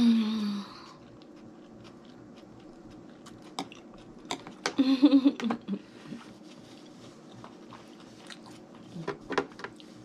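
Close-miked chewing of a mouthful of baked escargot topped with melted cheese, with many small wet mouth clicks. Appreciative closed-mouth hums ('mm') at the start and again about five seconds in.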